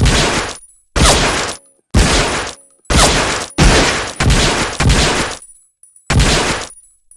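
Loud pistol gunshot sound effects: about eight single shots, roughly one a second with an uneven spacing, each with a sharp crack that fades away over about half a second.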